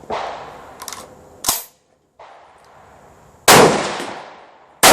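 Rifle shots in 7.62x39 at a range. Two loud reports come about a second and a half apart in the second half, each followed by a long echoing decay. Fainter shots or cracks come earlier on.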